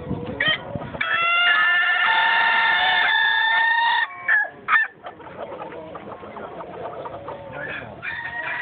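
A Chaan rooster, Okinawa's native crowing chicken, gives one long, level crow of about three seconds, followed by two short, sharp sounds.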